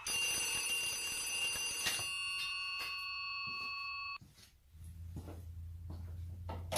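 Phone ringing with a bell-like ringtone that cuts off abruptly about four seconds in. A low steady hum with faint clicks follows.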